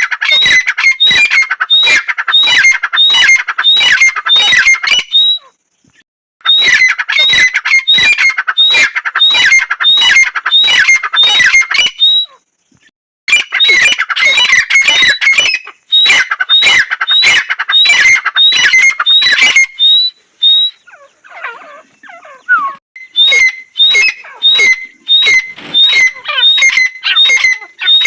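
Female grey francolin (dakhni teetar) calling: runs of rapid, shrill, repeated notes, about two a second, broken by two short pauses, with a quieter stretch of softer scattered notes about three-quarters through before the calls resume.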